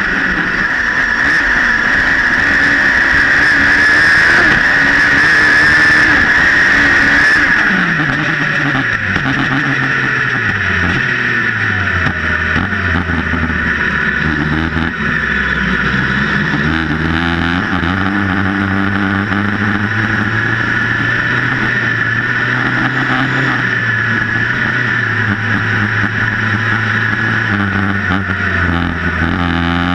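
Sprint 1600 autocross buggy's engine heard on board: high revs for the first several seconds, then the revs fall away and it runs on at lower, fairly steady revs with small rises and falls. A steady hiss runs under the engine throughout.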